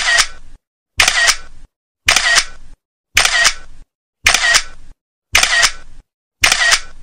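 A camera shutter sound effect repeated about once a second, seven times. Each repeat is identical, with dead silence between them.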